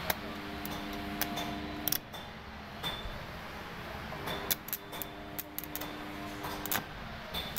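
Stick (arc) welding a tow hook onto a motorcycle's rear frame: two spells of a steady hum, the first about two seconds long and the second from about four to seven seconds in, with sharp crackles and clicks as the arc is struck and broken.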